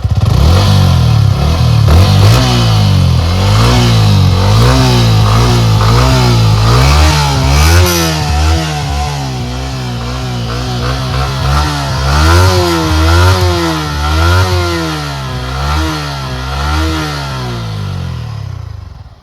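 Yamaha MT-15's stock exhaust, its 155 cc single-cylinder engine running at raised revs and then revved up and down again and again, the pitch rising and falling with each blip, before dropping away near the end.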